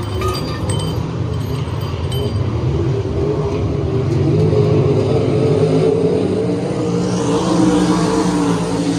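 410 sprint car V8 engines running hard, a loud continuous drone whose pitch wavers up and down and swells about halfway through and again near the end.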